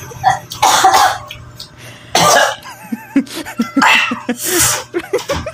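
A man coughing hard about four times, with short throaty sounds between the coughs.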